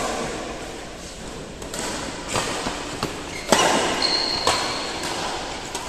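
Badminton rackets striking a shuttlecock during a doubles rally: a series of sharp hits, about six, the loudest about three and a half seconds in, in a large indoor hall. A brief high squeak comes just after the loudest hit.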